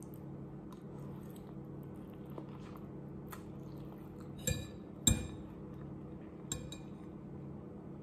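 Metal fork clinking and scraping against a ceramic bowl as noodles are twirled and lifted: a few scattered, ringing clinks, the loudest about four and a half and five seconds in and another near six and a half, over a steady low hum.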